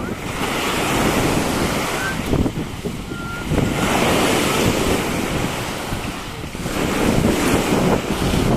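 Surf breaking and washing up the beach, with wind buffeting the microphone. The waves swell up about half a second in and again at around three and a half seconds.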